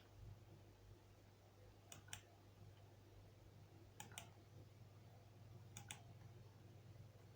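Near silence with a low steady hum, broken by three faint double clicks about two seconds apart.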